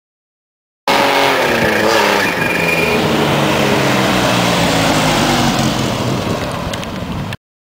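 Supercharged engine of a modified 1957 Nash Metropolitan hot rod running loud as the car drives off, its pitch rising and falling in the first couple of seconds and then holding steadier. The sound starts abruptly about a second in, eases slightly near the end and then cuts off suddenly.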